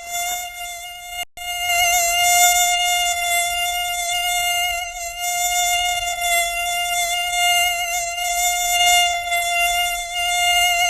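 High-pitched whine of a mosquito's wingbeat in flight, steady with a slightly wavering pitch and rich overtones. It drops out briefly about a second in.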